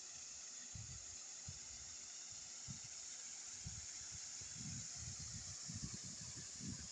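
Faint steady splashing hiss of paddlewheel aerators churning a shrimp pond. Wind rumbles on the microphone come more often in the second half.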